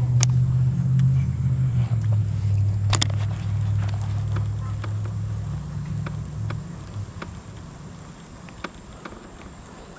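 A low, steady motor hum that steps down in pitch twice and fades away by about seven seconds in. Light clicks from a baitcasting reel being handled are scattered through, with a sharper click about three seconds in.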